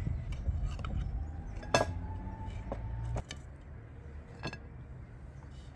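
A knife clinking and scraping against a metal baking tray and a glass plate as a baked meat-topped crust is cut and served: a few sharp clinks, the loudest about two seconds in, over a low rumble that drops away about three seconds in.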